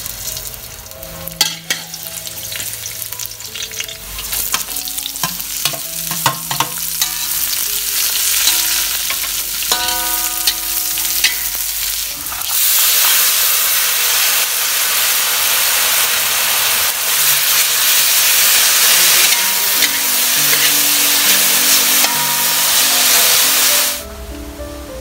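Garlic sizzling in hot oil in a steel wok, with a metal utensil clicking and scraping against the pan. About twelve seconds in the sizzle gets much louder as sliced lemongrass, galangal, ginger and kaffir lime leaves are stir-fried, then it cuts off suddenly near the end.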